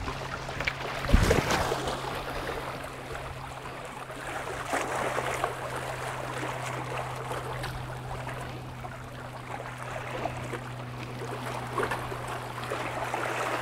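Waterside ambience of moving, lapping water with a steady low hum underneath and a single thump about a second in.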